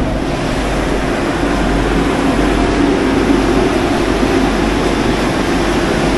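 Steady loud hum and whir of a standing Vande Bharat Express electric trainset, its air-conditioning and equipment ventilation running, with a low droning tone.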